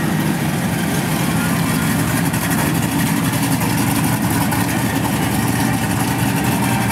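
Modified pickup truck's V8, fitted with an aftermarket 232/234 camshaft and tune, running steadily at idle with no revving.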